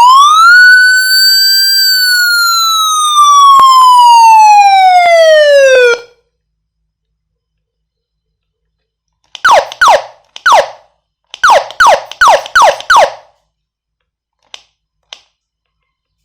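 Electronic police siren sounding one wail cycle: the tone sweeps up quickly, then falls slowly over about five seconds and cuts off. After a pause of a few seconds comes a run of about ten short, fast downward chirps, then two faint clicks.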